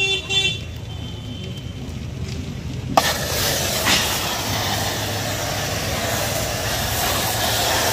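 Pressure-washer jet spraying water onto a mud-caked tractor: a steady, loud hiss that starts with a click about three seconds in.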